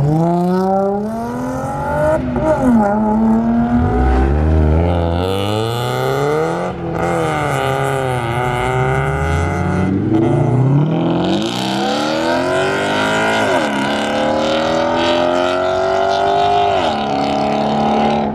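Car engine revving hard under acceleration, its pitch climbing and then dropping back several times as it shifts up through the gears.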